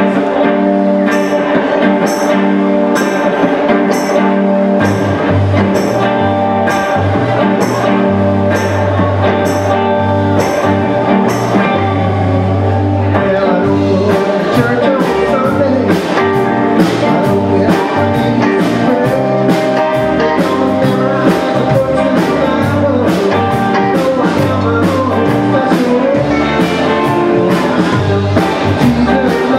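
Live roots-rock band playing: electric guitars over a steady ticking beat, with low bass notes coming in about five seconds in and the full drum kit joining about halfway through.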